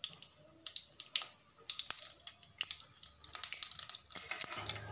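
Mustard seeds popping and spluttering in hot sesame oil in a kadai: sharp, irregular pops, a few each second, the sign that the oil is hot enough for tempering. A low steady frying hum comes in near the end.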